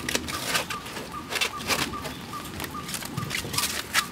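Plastic cling film crackling as it is pulled off the roll and wrapped over a jar, in irregular sharp crinkles. Behind it a bird chirps steadily, about three short calls a second.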